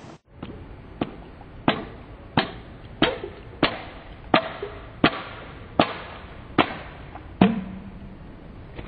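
An open palm slapping down on the mouth of a glass beer bottle, about ten slaps at a steady pace of roughly one every 0.7 s, each a sharp smack with a short glassy ring. The slaps are meant to drive a pressure shock through the bottle to knock its bottom out. The last slap is the loudest and leaves a low ring.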